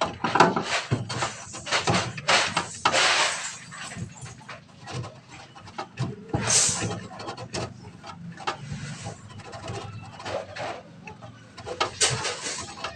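Irregular knocks and clattering, with a longer scraping rush about three seconds in.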